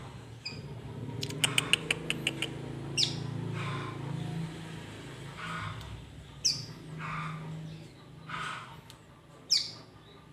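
Young songbird calling: a sharp falling chirp about every three seconds, with raspy calls between them. Near two seconds in comes a quick run of about eight clicking notes. A steady low hum sits underneath.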